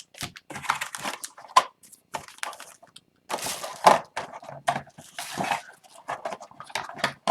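Packaging crackling and tearing in irregular short bursts: a sealed box of hockey cards and its wrapping being opened by hand.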